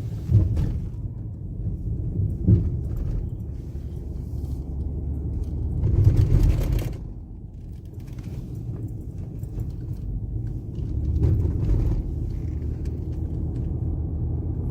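A car driving, with a steady low rumble of engine and road noise heard from inside the cabin. A louder swell of noise rises and falls about six seconds in.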